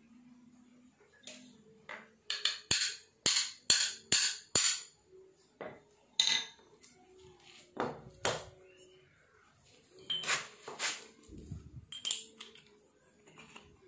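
Metal clinks and knocks from handling cast-iron pillow block bearings on a steel spindle with an aluminium pulley. A quick run of about seven sharp clinks comes a couple of seconds in, followed by scattered single knocks.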